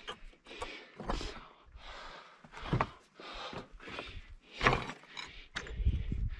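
Hiker's footsteps crunching on a rocky trail, a step about every half to one second, with a few sharp clicks among them.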